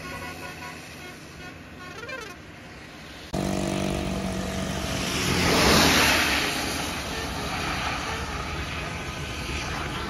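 A large bus passing close by: its engine and road noise swell to a peak about six seconds in and then ease off. Before that, a steady pitched tone cuts in abruptly a little over three seconds in.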